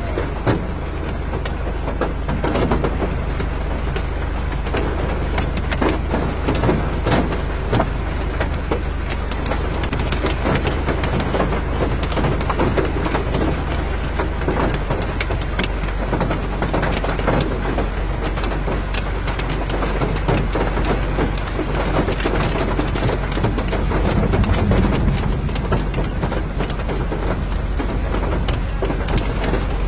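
Rain pattering steadily on the ground, with many small sharp drop impacts, over a steady low rumble.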